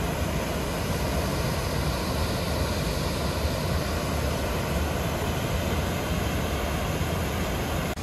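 Steady rushing of mountain river water, an even noise with a strong low rumble.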